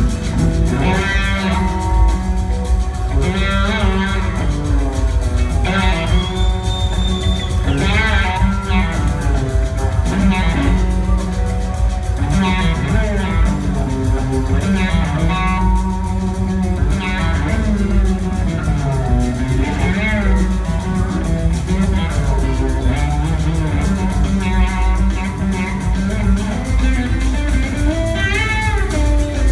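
Live band instrumental jam: a lead electric guitar plays a bending, gliding solo line over bass and drums.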